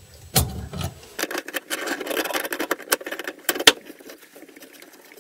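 Channel-lock pliers working the large nut on the underside of a bathroom sink drain as it is loosened counterclockwise: a run of rapid metallic clicks and rattles with a few sharp clicks, fading about four seconds in.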